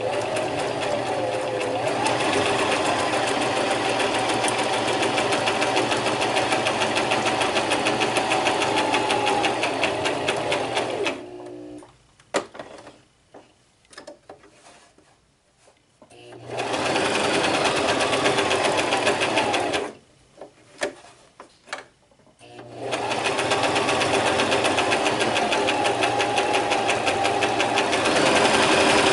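Brother LX3817 sewing machine stitching through fabric, its motor and needle running fast in three spells of several seconds. Each spell winds up in pitch as it starts, and short pauses between them hold a few light clicks.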